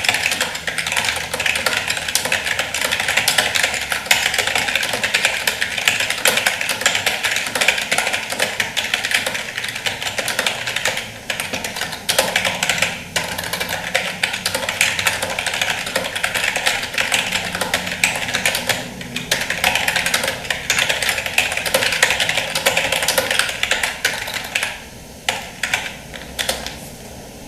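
Fast, continuous typing on a Rexus membrane keyboard, the keys clacking densely; near the end the typing slows to a few separate keystrokes and stops.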